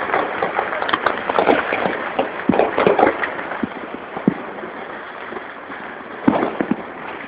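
Firecrackers and fireworks crackling and popping in a dense irregular stream, busiest in the first few seconds, then thinning to scattered pops with a few sharper single bangs.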